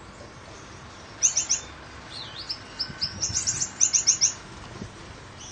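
Gouldian finches chirping: quick runs of short, high notes start about a second in and stop a little after four seconds. Under them runs the steady noise of a fan.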